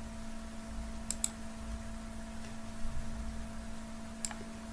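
Computer mouse clicking: a quick double click about a second in and a single click near the end, over a faint steady hum.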